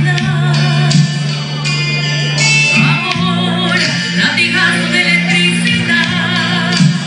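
A singer performing a ballad into a microphone over a recorded backing track, with held, wavering notes over sustained low accompaniment.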